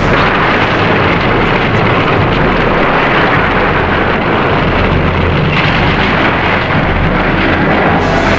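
Loud, continuous film battle sound effects: a dense rushing, rumbling noise like fire or a destruction blast, with no clear pitch or rhythm.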